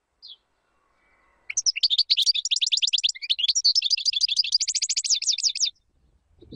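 European goldfinch singing: one short chirp, then after about a second's pause a fast run of twittering notes and trills lasting about four seconds.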